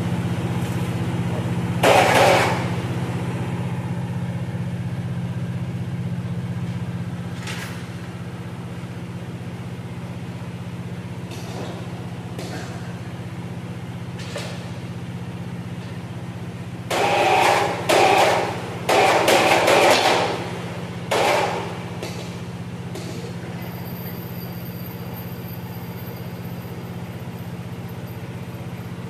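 Steady machine hum under loud metal clanks and bangs, one about two seconds in and a cluster of about five between seventeen and twenty-one seconds, as the heavy steel end bell of a 700 horsepower DC motor is worked free and handled.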